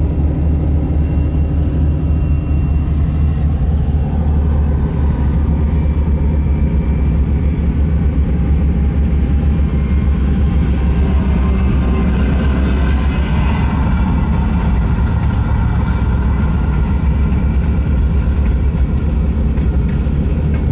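A Jeep's engine and tyres running at speed, heard inside the cabin as a steady low rumble.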